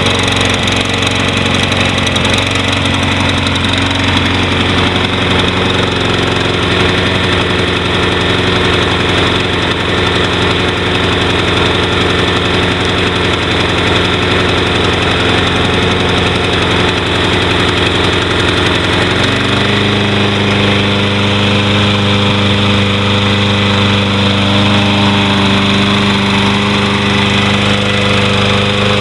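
Honda GCV160 single-cylinder lawn mower engine running steadily just after starting. About two-thirds of the way through, its note shifts abruptly to a different steady pitch.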